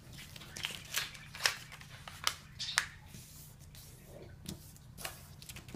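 Sheet of printer paper being folded by hand and creased flat: a string of short, crisp rustles and crinkles at irregular intervals.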